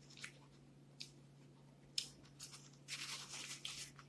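Close-up eating sounds of crispy fried chicken: a few sharp mouth clicks about a second apart, then about halfway through a second of crackling and tearing as the crisp skin is bitten and pulled apart.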